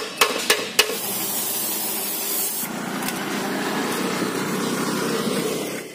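Four sharp scraping strokes of a hand file on a rusted steel scooter floor panel in the first second, then a long, steady spraying hiss like a paint spray gun at work.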